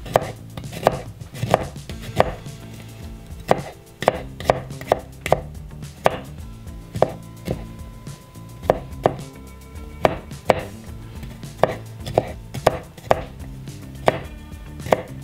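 Chef's knife mincing garlic on a cutting board: sharp, uneven chops, roughly two a second with brief pauses, about two dozen strokes in all.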